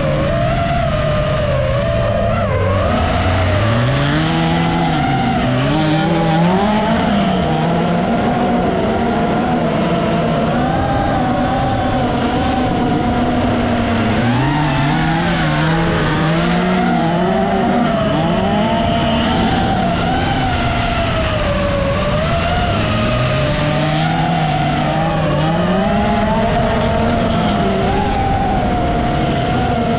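Autocross race car engines revving hard, their pitch climbing and dropping again and again as the cars accelerate and lift off, with some tyre scrub.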